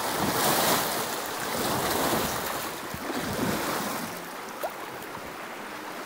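Rushing water of a shallow rocky rapid around a kayak's hull. It is loudest for the first few seconds, then eases as the kayak slides into calmer water, with one short knock about four and a half seconds in.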